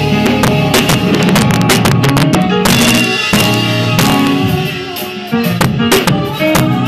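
Electronic keyboard played live with both hands in fast runs and chords, with sharp drum hits throughout. The playing thins out briefly about five seconds in.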